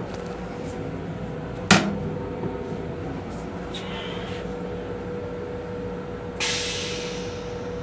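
A plastic toilet seat lifted and knocking against the raised lid with one sharp clack about two seconds in, over the steady hum and rumble of a moving commuter railcar. A little past six seconds a hissing rush starts abruptly and slowly fades.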